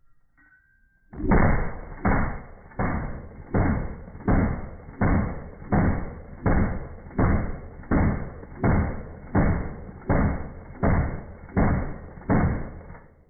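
AK-47 gunfire heard as a slow, even series of about seventeen deep booms, one every 0.7 seconds or so, each sharp at the start and dying away. It begins about a second in.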